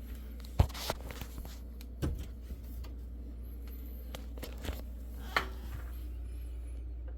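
A handful of sharp knocks and clicks, the loudest about half a second in and about five seconds in, over a steady low hum.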